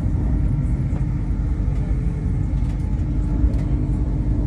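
Steady low rumble of a passenger train running at speed, heard from inside the carriage, with a few faint ticks.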